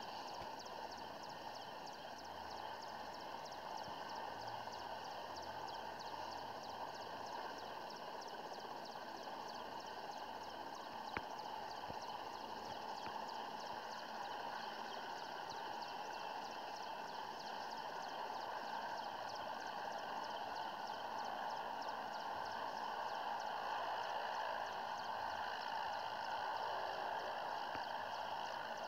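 Mi-17 twin-turbine helicopter running before take-off: a steady turbine rush with a rapid, even rotor beat, growing slowly louder toward the end.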